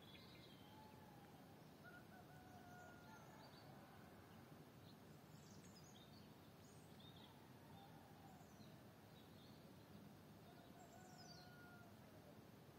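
Faint dawn birdsong: scattered short chirps and a couple of longer, lower drawn-out notes, about a second in and again near the end, over a steady low background hiss.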